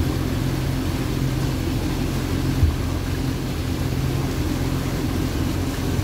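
A motorboat's engine running steadily at cruising speed, a low even hum with wind and water noise over it. A brief low knock about two and a half seconds in.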